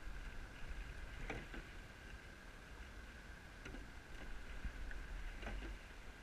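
Rowing shell under way, with oars knocking in their oarlocks on each stroke, about every two seconds, over a low rumble of wind on the microphone and a faint steady high whine.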